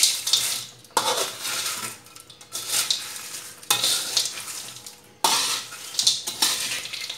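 Metal spatula scraping along a metal wok, tossing crisp fried cassava chips and anchovies into chili sambal. It comes in repeated strokes, each starting sharply and fading, roughly one to one and a half seconds apart.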